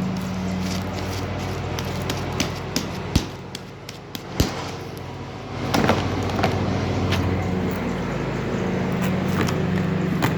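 Homemade slime being kneaded and stretched by hand, with sharp sticky clicks and pops, two louder ones partway through. A steady low machine hum runs underneath and drops away briefly in the middle.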